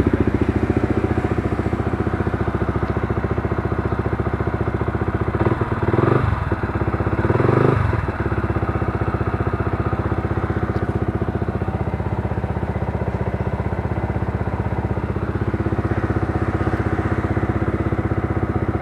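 Yamaha TFX150's single-cylinder four-stroke engine idling steadily through a gutted, modified exhaust, with two brief revs about six and seven and a half seconds in.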